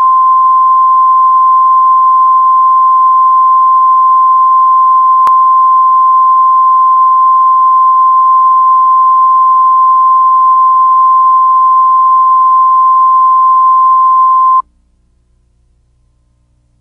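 Steady 1 kHz line-up reference tone accompanying broadcast colour bars, one unbroken pitch. It cuts off suddenly about two seconds before the end, leaving only a faint low hum.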